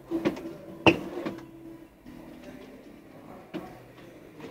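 A few sharp knocks and clicks from objects being handled, the loudest about a second in, over a faint steady hum.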